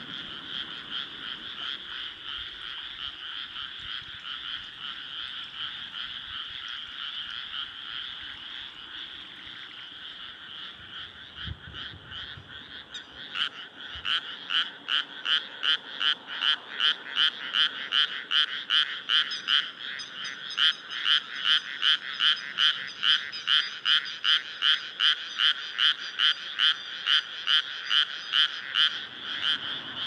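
A loud chorus of rice-paddy frogs forms a dense, continuous wall of calling. About halfway through, one nearer frog starts a fast, steady series of croaks, nearly three a second, that stands out over the chorus.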